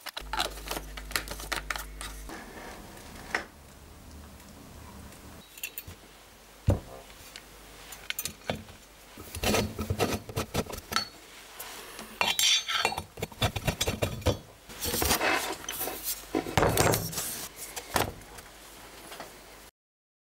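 Scattered metallic clinks, taps and knocks of a steel bracket and small hand tools being handled and screwed onto the top of a belt sander, coming in several bunches; the sander itself is not running. The sound cuts to silence near the end.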